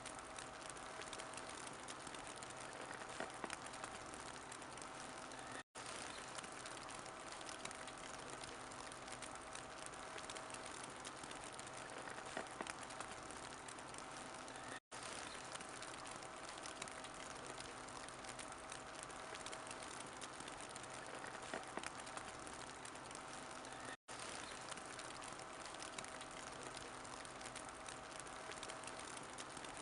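Wood fire crackling in a fireplace: a steady hiss dotted with many small pops and snaps. It cuts out for an instant three times, about nine seconds apart.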